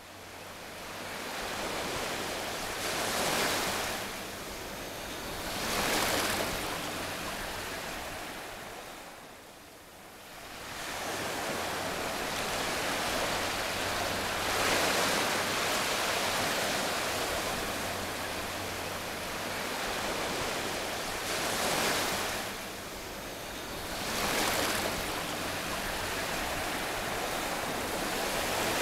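Surf-like rushing noise that swells and fades several times, dropping low about ten seconds in before building again.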